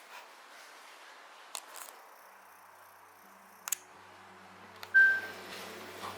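Two sharp clicks, then a low steady hum that starts a little past halfway, and a short high beep about five seconds in, the loudest moment.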